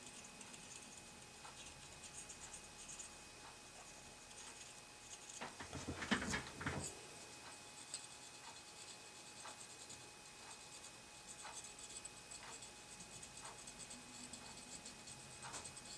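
Scrubbing at a soldered brass carburetor float with alcohol to clean off the flux: quick, light scratching strokes, with a louder burst of handling noise about six seconds in.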